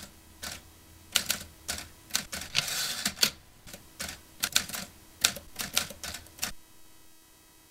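Manual typewriter sound effect: irregular bursts of key strikes clacking, with a brief rasping sweep about two and a half seconds in. The strikes stop about six and a half seconds in.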